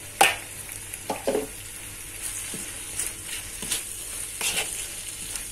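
Metal spatula scraping and stirring chili paste and egg around a wok over a steady sizzle of frying. A few strokes come at irregular intervals, and a sharp clack just after the start is the loudest.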